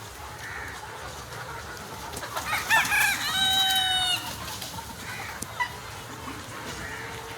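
Rooster crowing once, about two and a half seconds in: a few short rising notes, then a long held note. Softer clucking and calls from a flock of Sonali chickens come before and after it.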